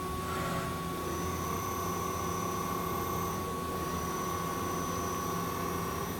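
Hartford Mighty Viper VMC-2100 vertical machining center running a tapping cycle at low spindle speed, a steady hum with a high motor whine that comes in about a second in and breaks off briefly near the middle.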